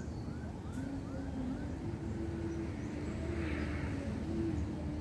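A motor engine running with a steady low drone whose pitch shifts a little, joined in the first second and a half by a run of short rising chirps.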